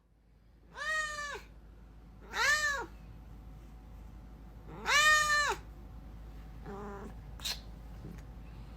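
Domestic cat meowing: three loud drawn-out meows, each rising and then falling in pitch, followed by a fainter, shorter meow near the end.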